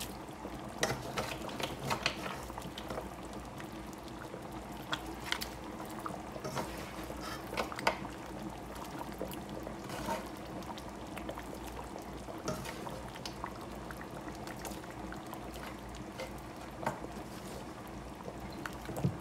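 Pot of thick pumpkin-and-beef soup boiling, bubbling steadily with scattered small pops.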